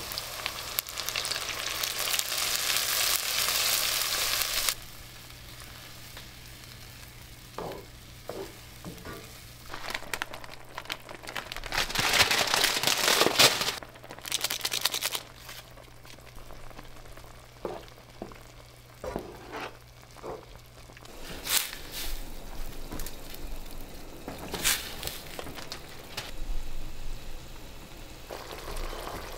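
Food sizzling in a frying pan of bacon, onion and mushrooms as milk is poured in and the sauce cooks. The sizzling is loud for the first five seconds, then drops, and surges again between about ten and fourteen seconds in; scattered clicks and knocks come between.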